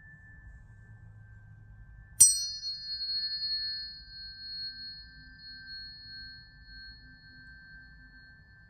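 Tuning forks ringing: a faint steady tone rings on from before, then about two seconds in a fork is struck with a sharp click. It rings out in a high, pure tone that fades slowly.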